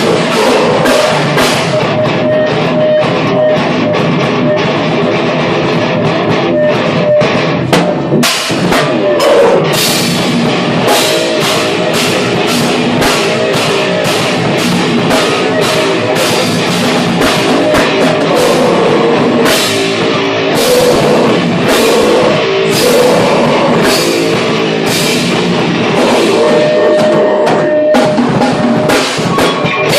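Heavy rock band playing loud and live: a drum kit driving fast, steady beats with frequent cymbal hits under thick distorted guitars.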